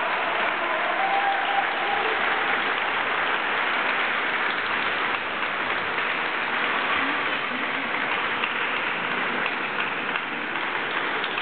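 Audience applauding steadily, with the last notes of the dance music fading out in the first couple of seconds.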